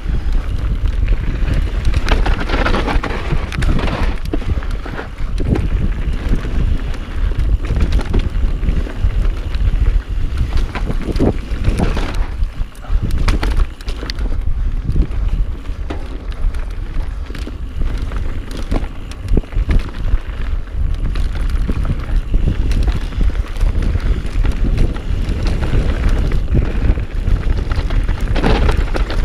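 Wind rushing over a chest-mounted action camera's microphone as a mountain bike descends a dirt trail at speed. Tyres roll and skid over dirt, and the bike knocks and rattles over bumps.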